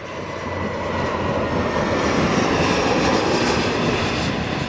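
An aircraft passing overhead: a rushing engine noise that swells to a peak about three seconds in, then begins to fade.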